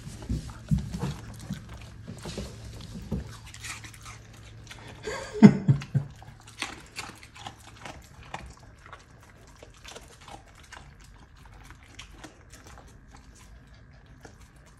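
Samoyed eating food scraps off a wooden floor: small crunching and lip-smacking clicks as it picks up and chews bits of carrot and cauliflower, with one louder, brief dog sound about five and a half seconds in.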